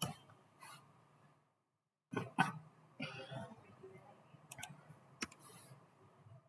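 A few faint, sharp clicks from a computer mouse and keyboard: two close together about two seconds in, and one more a little after five seconds, over faint low room noise.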